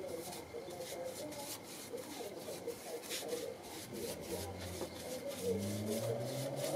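Paintbrush strokes scrubbing raw linseed oil into the oak staves of a half wine barrel, a quick run of short scratchy rubbing strokes. A low engine hum builds in the last couple of seconds.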